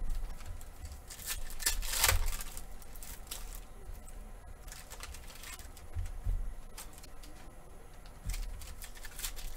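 A trading-card pack's plastic wrapper crinkling as it is handled and opened, with cards shuffled in the hand, in irregular rustling bursts, the loudest about two seconds in.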